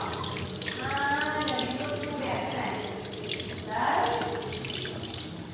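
Tap water running into a stainless steel sink and splashing over a yellow melon as hands rub it clean under the stream.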